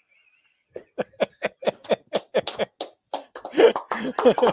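A man's voice making quick, rhythmic, short bursts without words, about five a second, starting about a second in and crowding together near the end.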